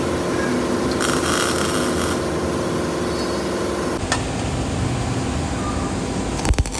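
Steady mechanical hum of workshop machinery, with a short burst of hissing about a second in. The background changes about four seconds in, and a few sharp clicks come near the end.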